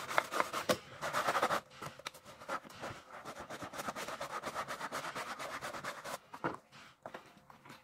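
A stiff scrubbing brush scrubbing a wet, soapy sneaker in quick back-and-forth strokes, several a second.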